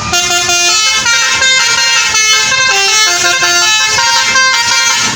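Bus telolet basuri musical air horn playing a quick tune, one held horn note after another at changing pitches, cutting off suddenly near the end.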